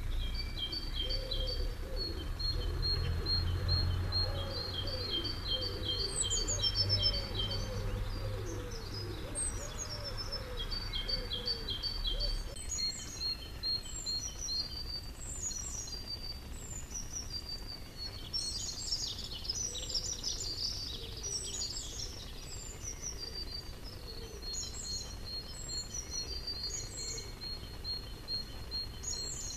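Small songbirds chirping and singing: runs of quick repeated high notes and short falling whistles, busiest in the second half. A low rumble underneath fades out about twelve seconds in.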